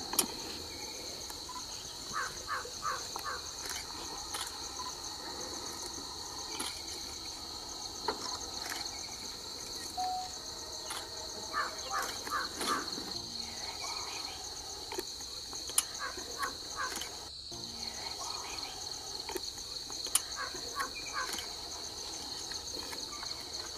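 A steady, high-pitched insect chorus, with short runs of three or four repeated calls from another animal several times, and a few sharp clicks.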